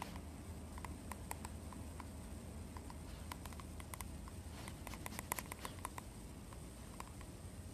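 Quiet room tone: a low hum with faint, scattered soft clicks.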